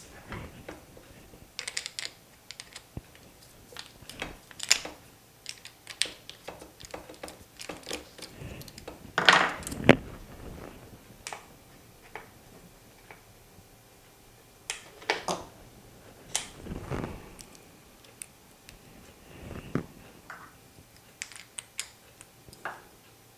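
Small metal tools and parts being handled on a workbench: scattered clicks, taps and clatters, with a louder scraping clatter about nine seconds in, while a chuck key is hunted for and a polishing tool is fitted.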